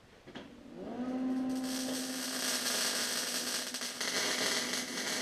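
An electric welder powering up, a hum rising and then holding steady, followed by the welding arc crackling and sputtering, with a short break near four seconds. A nut is being welded onto a seized stud of the catalytic converter mount so that it can be turned off.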